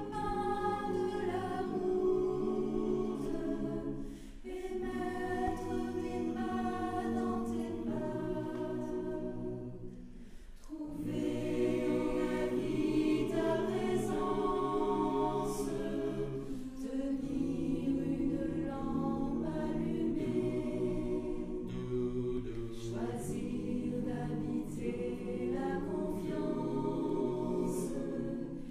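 Mixed choir of women's and men's voices singing a cappella, in long sustained phrases with short pauses for breath between them.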